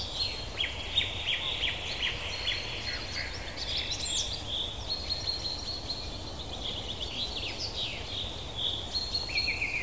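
Songbirds singing: bright chirps and rapid trills overlapping, over a steady low rumble.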